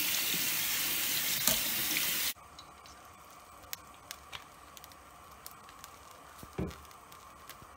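Kitchen tap water running onto cooked bowtie pasta in a plastic colander in a stainless-steel sink, with a spoon stirring the pasta. The water cuts off suddenly a little over two seconds in. After that there is only a low background with scattered faint ticks and one soft thump near the end.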